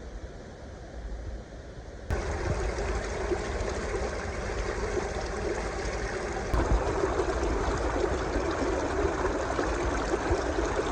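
Flowing stream water rushing steadily. It comes in abruptly about two seconds in after a quieter hiss, and grows louder about halfway through.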